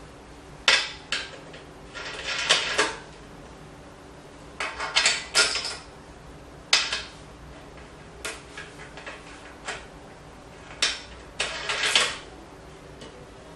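Stainless steel distiller parts clinking and knocking as the lid and column are fitted onto the boiler pot: sharp metallic clicks and short clattering scrapes in clusters a second or two apart.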